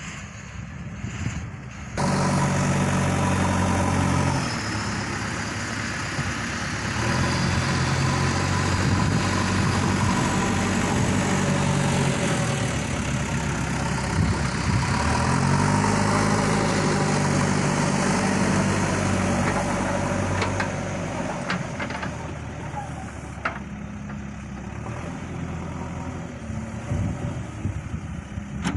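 JCB 3DX backhoe loader's diesel engine working, its pitch rising and falling as the throttle changes. It gets sharply louder about two seconds in, and a few short knocks come near the end.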